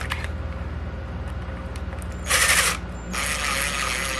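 Ratcheting screwdriver driving screws in two short bouts, the second lasting about a second near the end, over a steady low hum.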